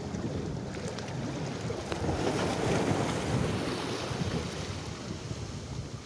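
Sea water washing and splashing against rocks, with wind buffeting the microphone.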